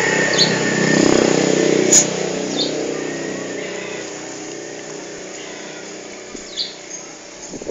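A motor vehicle's engine, loud at first and steadily fading away over several seconds, with a few short high chirps and clicks over it.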